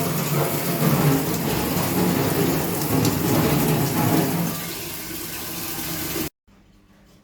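Dog toilet flushing from its tank: a loud, steady rush of water that eases off a little after about four and a half seconds, then cuts off suddenly about six seconds in.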